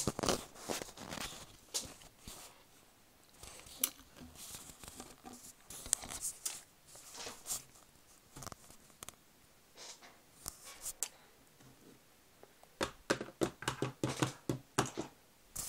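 Plastic Schleich toy horse and rider figures handled on a tabletop: scattered clicks, taps and rustles, then a quick run of taps near the end as the horse figure is moved over the table.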